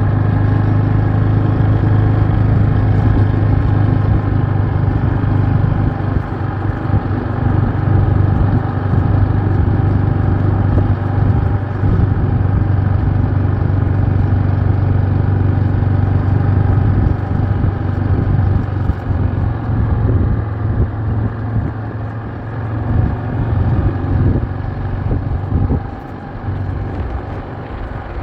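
An engine running steadily, a low, even hum that holds one pitch and eases off slightly near the end.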